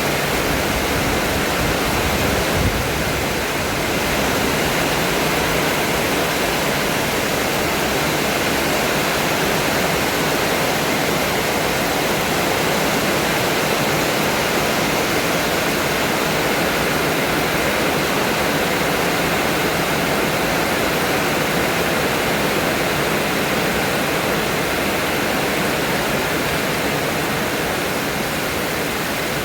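Strong wind blowing, a steady, loud rushing hiss with no letup, with one brief thump about three seconds in.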